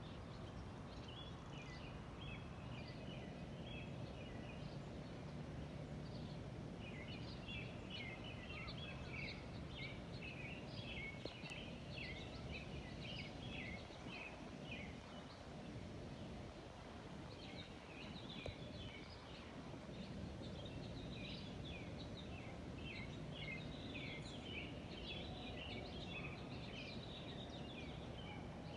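Small birds chattering and chirping in dense bursts, over a steady low background rumble.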